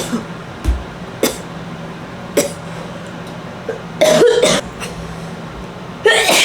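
A woman coughing in two loud fits, after a few light clicks, as she exhales a dab hit from an electronic rig.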